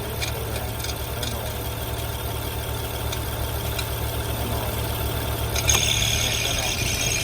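Honda car engine idling with an even low pulse and a few faint ticks. About three-quarters of the way through, a loud hiss starts suddenly and keeps going over the engine.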